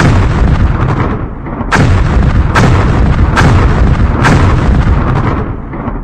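A rapid series of explosions: five loud blasts in about four and a half seconds, each trailing off in a long rumble that runs into the next.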